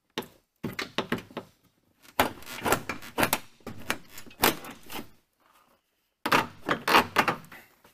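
Door trim panel of a 1985 Chevy C-10 being pried and lifted off the door: three bouts of clicks and knocks as the panel's retaining clips pop loose and the panel knocks against the door.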